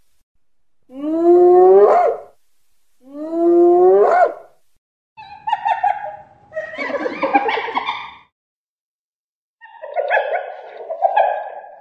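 Spotted hyena calling: two drawn-out calls, each about a second long and rising in pitch, then two longer bouts of rougher, more grating calls.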